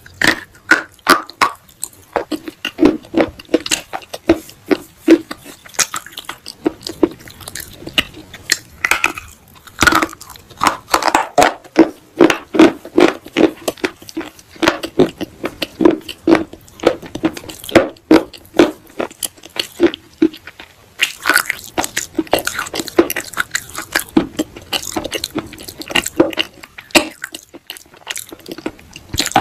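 Close-up biting and chewing of baked clay pot pieces: rapid, sharp, dry crunches that come in clusters, with short pauses between mouthfuls.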